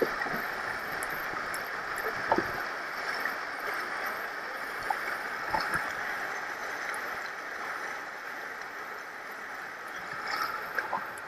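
Shallow river riffles rushing past a plastic kayak's hull: a steady noise of moving water, with a few light knocks and some splashing near the end as a person wades through the water.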